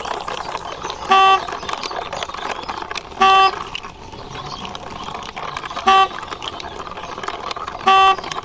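Toy quad bike's short electronic horn beeps, four of them about two seconds apart, each far louder than the rest, over a steady rustling noise as the toy is pushed along by hand.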